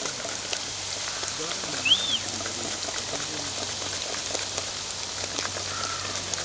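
Raw nendran banana slices deep-frying in hot oil in a kadai: a steady sizzle with scattered crackling. About two seconds in, a short rising-and-falling call sounds over it.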